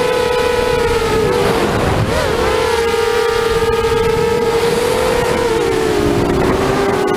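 Brushless motors and propellers of a 5-inch FPV racing quadcopter whining in flight. A strong steady pitch shifts briefly about two seconds in and dips slightly near the end as the throttle changes.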